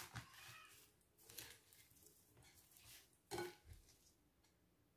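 Faint, sparse taps and rustles of plastic salad servers tossing salad leaves in a glass bowl; the clearest knock comes about three and a half seconds in.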